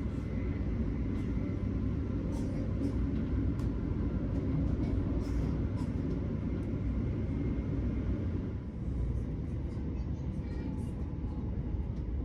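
Interior noise of a Class 387 Electrostar electric multiple unit running at speed: a steady low rumble of wheels on rails, with occasional faint clicks and rattles.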